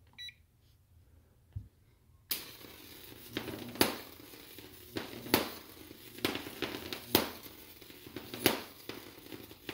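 A Jacob's ladder driven by a homemade high-voltage ZVS driver switches on about two seconds in. The arc gives a steady hissing buzz, broken by sharp cracks roughly once a second.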